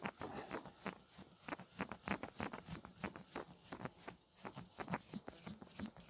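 Soft, irregular clicks and knocks with clothing rustle close to the microphone, from fishing tackle being handled.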